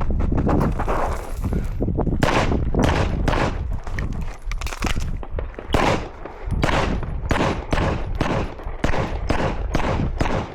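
Gunshots from a shooter working through an IDPA stage: about a dozen and a half sharp shots starting about two seconds in, fired mostly in quick pairs and triplets with short pauses between strings.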